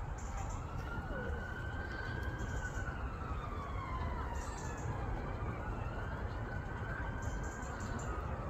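An emergency vehicle siren wailing, its pitch sweeping slowly up and down, over a steady low rumble.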